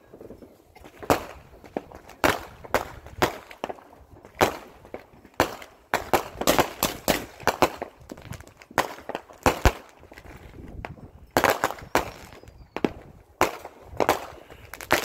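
Fireworks going off in a long, uneven run of sharp bangs, roughly two or three a second.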